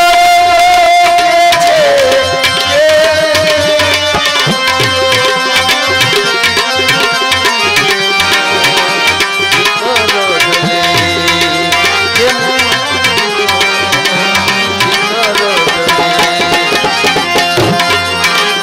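Indian devotional bhajan music: tabla playing a fast steady rhythm under a held, gently wavering melody line.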